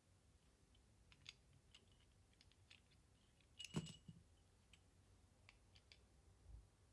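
Faint clicks and taps of a König & Meyer microphone-stand boom arm being handled and its clutch knob worked, with one louder knock about four seconds in.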